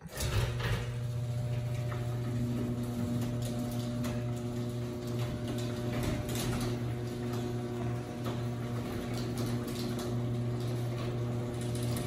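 Electric garage door opener motor running with a steady hum as it raises a sectional garage door on its rail, with scattered light clicks and rattles from the door moving in its tracks. The door is balanced by a newly replaced spring.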